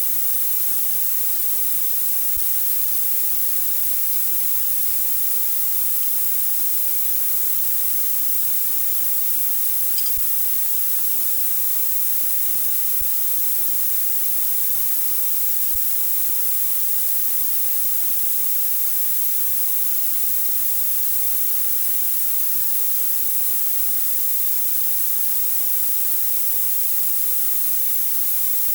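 Steady, even hiss, strongest in the high end, with one faint tick about ten seconds in.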